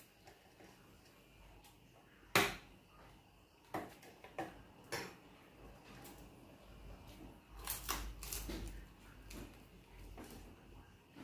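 Eating at a table by hand: a few sharp clicks and clinks from the plate and the crispy pork being handled. The loudest is a single click about two seconds in, with a quick cluster of clicks about two-thirds of the way through.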